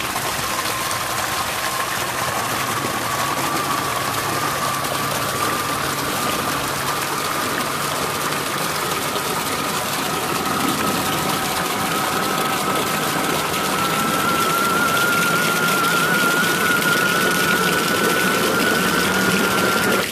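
3D-printed RC mini snow blower running flat out under a water-pumping load test, its electric motor and ABS-printed gearbox whining while the impeller throws a jet of water with a steady splashing hiss. The whine climbs slowly in pitch throughout.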